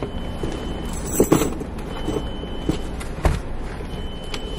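Car running, heard from inside the cabin as a steady low rumble, with a high steady beep sounding three times about two seconds apart. Two sharp knocks come about a second in and again about three seconds in.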